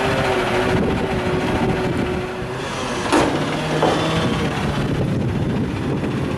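Front-loader garbage truck running, its engine and hydraulics working steadily as the front arms lift a dumpster overhead, with a brief loud surge about three seconds in.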